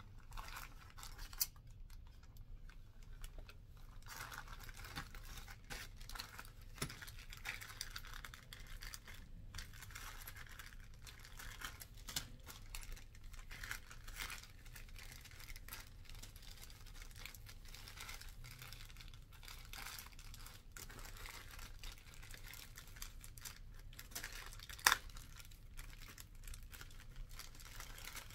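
Clear plastic parts bags crinkling as they are handled and opened, with a few sharp clicks, the loudest a little before the end.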